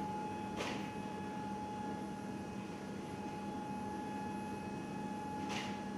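Steady machinery hum inside an aircraft cargo hold, made of a fixed mid-pitched whine over a lower drone. Two short clacks sound, one about half a second in and one near the end.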